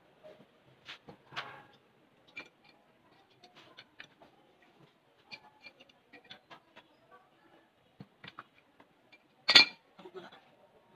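Scattered clicks and clinks of tools and parts being handled on a small electric water pump during assembly, with one loud sharp knock near the end.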